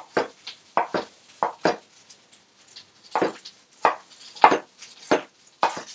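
Kitchen knife roughly chopping crushed cucumber pieces on a wooden cutting board. The blade makes about a dozen uneven knocks on the board, with a short pause near the middle.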